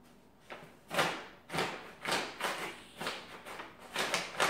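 Brown paper bag crinkling and rustling in short, irregular bursts as a cat pushes and paws about inside it, hunting for a piece of paper.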